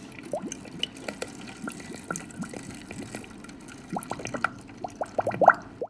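Liquid honey soft ice cream mix pouring in a steady stream into a stainless steel soft-serve machine hopper, splashing into the pooled mix. Short bubbly plops come thicker near the end.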